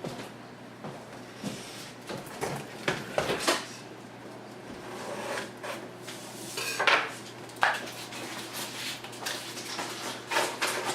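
A retail product box being handled and opened: irregular clicks, taps, scrapes and rustles of the packaging, with the sharpest knocks about seven seconds in.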